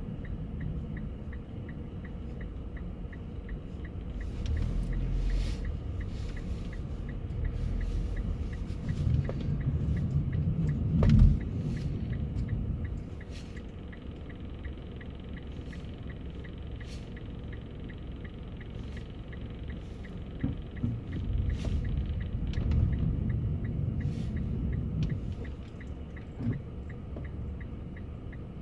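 Car driving, heard from inside the cabin: a steady low rumble of engine and tyres that swells louder twice, with a sharp knock about eleven seconds in.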